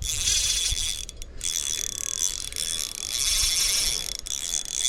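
Small 1000-size ultralight spinning reel ratcheting and whirring as a hooked fish is fought, the drag and gears working while line goes out and is wound in, with brief breaks.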